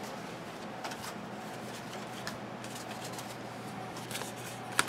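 Football trading cards being handled and leafed through by hand: faint clicks and snaps of card stock, a sharper snap near the end, over a steady low hum.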